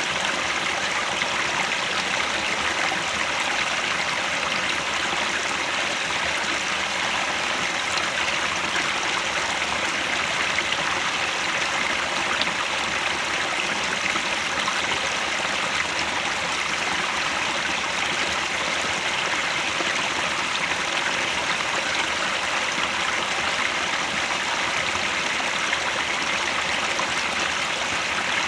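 Mountain stream near its source running steadily over rocks, a continuous even rush of water.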